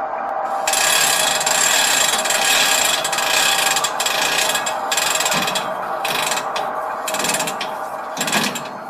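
Freight car hand brake being wound on: the brake wheel's ratchet and pawl click in a long, dense run, with a few short breaks in the second half, setting the brake.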